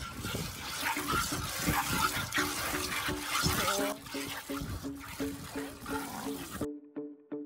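Milk squirting in repeated spurts from a cow's teats into a metal bucket during hand-milking, a hissing spray that cuts off suddenly near the end. Background music with a steady pulsing beat runs underneath.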